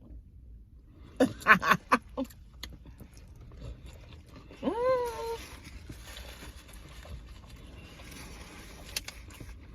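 Mouth sounds of eating: a cluster of chewing clicks and smacks, then about five seconds in one short pitched voice-like sound that rises and then holds, like a hummed "mm" of approval.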